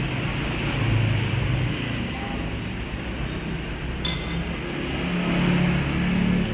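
Steady low rumble of passing road traffic, with engine tones rising and falling. A single bright clink of tableware comes about four seconds in.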